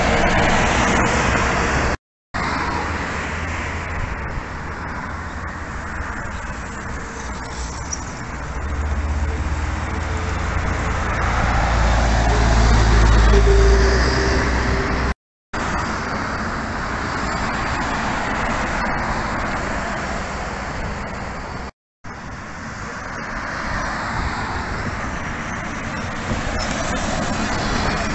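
Buses and road traffic going by, with a deep engine rumble that builds to its loudest about halfway through. The sound cuts out abruptly three times.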